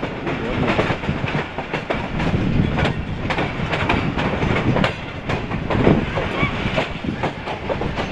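Passenger train coaches running over the track: a steady rumble with many sharp, irregular wheel clicks and clatters over rail joints and points, heard from an open coach doorway.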